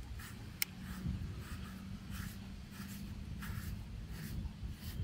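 Handheld deshedding brush scraping through a bulldog's short coat in quick repeated strokes, about two a second, with one sharp click about half a second in.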